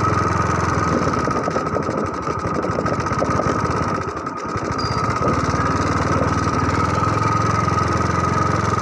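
Small engine running steadily, a low hum with a constant high whine over it, dipping briefly about four seconds in.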